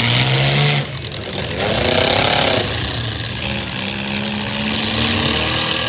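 Engines of several small demolition-derby cars running and revving, their pitch rising and falling.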